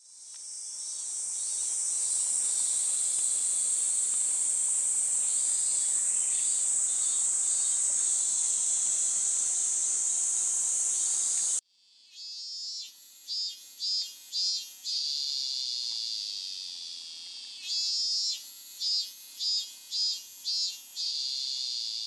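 Cicadas singing: a loud, steady, high shrill buzz that cuts off abruptly just before the middle. It is followed by a cicada song of rhythmic pulsed phrases, beats about half a second apart, in two runs.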